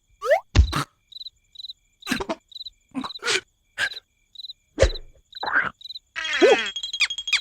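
Cartoon night-time cricket chirping, short high pulses repeating at a steady pace. Sharp cartoon sound effects cut in throughout, including knocks and a quick rising squeak near the start. About six seconds in, a louder wavering cartoon vocal sound comes in and a steady high tone begins.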